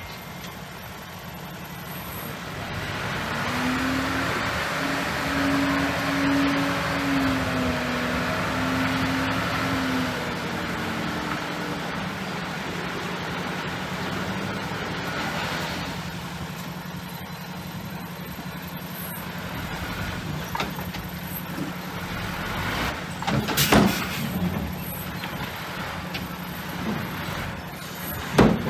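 Heavy diesel construction machinery running. About three seconds in the engine works harder and louder for several seconds, then settles back to a steady run. A few sharp knocks come near the end.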